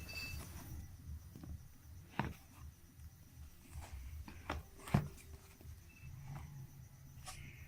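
Handling noise as the Redmi 5A phone box is handled: light taps and clicks over a low rumble, with a sharper knock about two seconds in and another about five seconds in.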